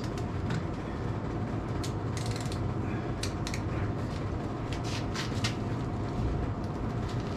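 Scattered creaks and clicks as a torque wrench slowly turns a Dana 36 limited-slip differential by its axle shaft at about 150 ft-lb, the posi clutches just barely slipping. A steady low hum runs underneath.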